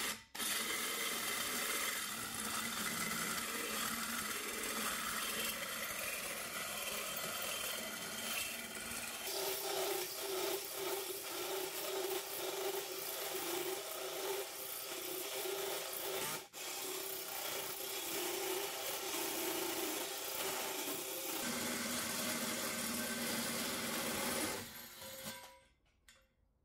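Cordless drill turning a hole saw through a steel plate held in a vise: a steady grinding and rasping of the saw teeth on the metal over the drill motor's steady tone, with a brief break about 16 seconds in. The cutting stops shortly before the end, with the hole cut through.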